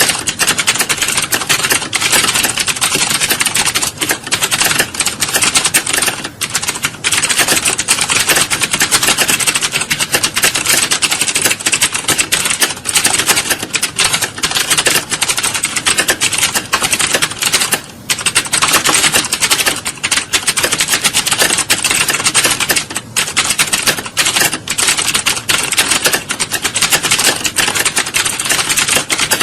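Many computer keyboards being typed on at once, as in an exam hall: a dense, continuous clatter of overlapping key clicks with no pauses.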